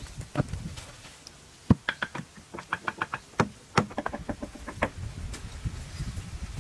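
A wooden club knocking timber poles into a lashed frame: a series of sharp wooden knocks, some heavy and some quick and light. Near the end comes a soft shuffle of footsteps on dirt.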